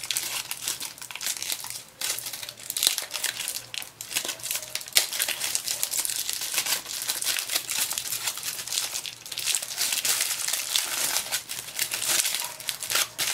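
Gold foil wrapper of a giant Ferrero Rocher being peeled off and crumpled by hand: continuous crinkling with many sharp little crackles.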